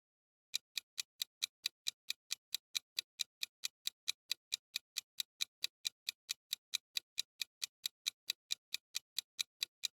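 Quiz countdown-timer sound effect: a steady clock-like ticking, about four to five sharp ticks a second, starting about half a second in.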